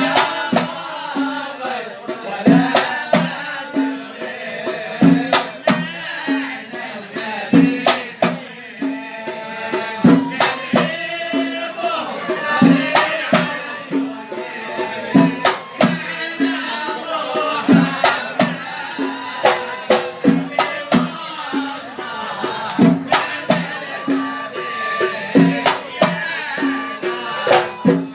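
Traditional Arabic folk song performed live: hand drums keep a steady beat of about two low strokes a second under sharp claps and rattling, with singing over them.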